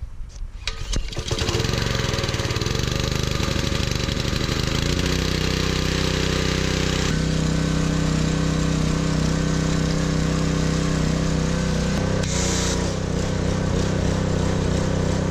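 Gas pressure washer's small petrol engine pull-started, catching after about a second and then running steadily, its note shifting once midway. Near the end a short hiss of spray comes from the foam cannon as the trigger is pulled.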